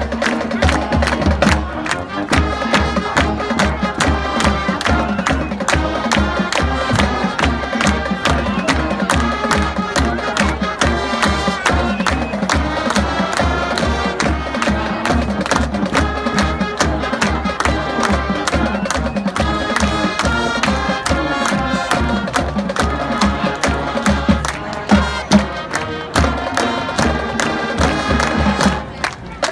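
High school marching band playing: brass and winds over a steady drum beat at about two strokes a second.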